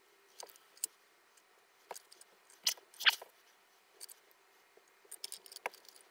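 Plastic petri dishes clicking and tapping as they are lifted, set down and restacked during agar pouring. The sound comes as scattered light clicks, with a sharper knock about three seconds in and a quick cluster of taps near the end.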